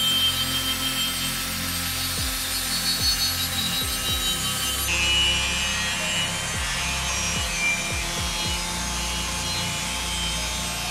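Electric angle grinder with an abrasive disc grinding rust and paint off a steel motorcycle swingarm: a steady motor whine over a continuous scraping rasp, the tone shifting about halfway through as the disc moves along the arm.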